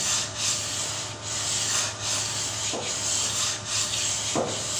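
Sandpaper on a hand sanding pad rubbed over body filler on a car door panel: even back-and-forth strokes, a little more than one a second, to level the filler flat without waves.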